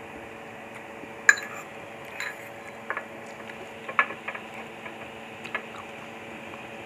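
Eating lomi noodles with a fork: slurping and chewing mouth sounds with several sharp clinks of the metal fork against the bowl, the loudest about a second in, over a steady background hum.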